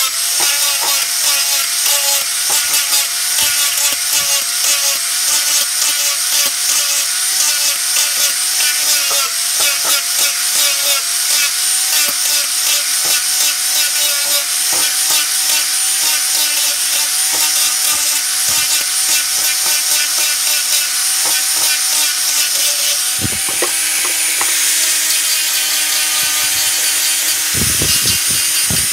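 Angle grinder running with an abrasive disc, sanding and shaping a knife's wooden handle. Its steady motor whine wavers with the pressure over a constant grinding hiss. The pitch shifts a little past the middle, and a few low knocks come near the end.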